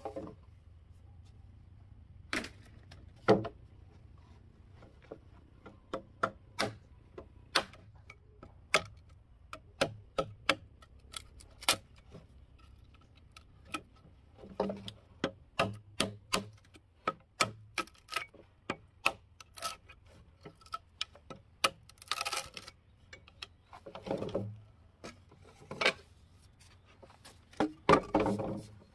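Irregular sharp taps and knocks, as of a hard tool striking wood, coming in scattered runs that grow busier in the second half, with a few louder knocks and short scraping stretches among them.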